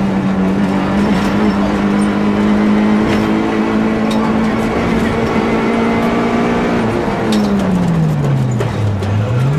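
Nissan Almera GTi's SR20DE 2.0-litre four-cylinder engine running hard and held at steady high revs on a gravel stage, then the revs drop about seven seconds in as the driver lifts off and pick up again near the end. Gravel ticks and clatters against the car now and then.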